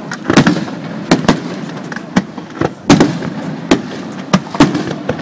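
Aerial firework shells bursting overhead, about ten sharp bangs in five seconds at an irregular pace.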